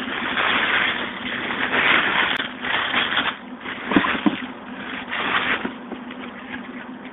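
Tissue paper rustling and crinkling in uneven swells as a shoebox is handled, with a couple of soft knocks about four seconds in.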